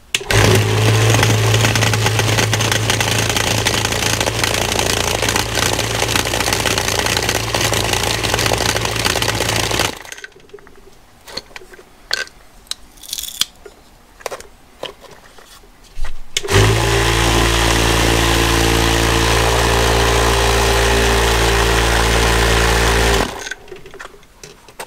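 Cheap vibratory tumbler loaded with dry media and a rusty wrench, switched on for about ten seconds: a loud steady motor hum with the hiss and rattle of churning media. It is then off for several seconds of clinks and knocks as the wrench is moved in the bowl, and runs again for about seven seconds before stopping.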